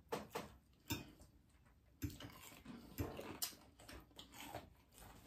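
Faint eating sounds: scattered soft clicks and smacks of chewing and a fork, with a few sharper clicks in the first second.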